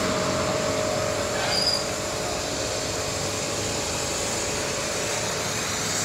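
Pressure washer running and spraying foam through a foam-can attachment: a steady hiss of spray over a constant motor whine, which eases a little about two seconds in.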